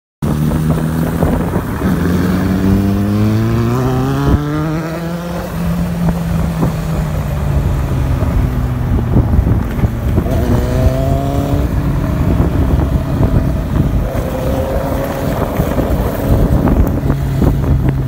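Kawasaki Z800's inline-four engine running through an SC Project aftermarket exhaust, accelerating with the pitch climbing about two seconds in and again about ten seconds in, and running steadily between.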